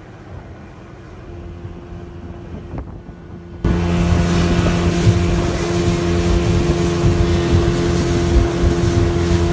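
Quiet at first. About three and a half seconds in, the sound jumps abruptly to a speedboat's engine running steadily at speed, with wind buffeting the microphone.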